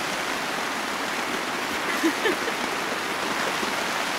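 Heavy rain falling steadily on a nylon tarp overhead, an even wash of downpour noise.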